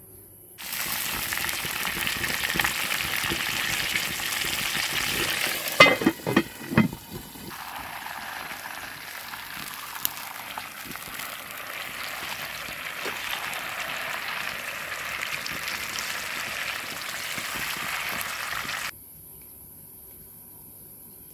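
Chicken pieces frying in hot oil in a cast-iron skillet, a steady loud sizzle. About six seconds in, a few loud clanks and scrapes of metal against the pan, after which the sizzle is a little lower; the sizzle cuts off suddenly near the end.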